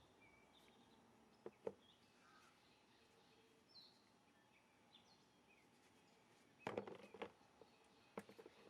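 Near silence with faint bird chirps and a few faint clicks, one pair about a second and a half in and a small cluster near the end.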